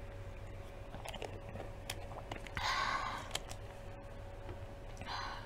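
Small mouth and swallowing sounds of a person drinking from a plastic juice bottle, with two short breathy rushes of noise, the louder about two and a half seconds in and a shorter one near the end.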